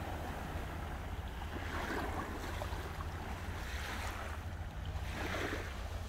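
Sea waves washing onto the shore, three swells of surf noise about two seconds apart, over a steady low rumble.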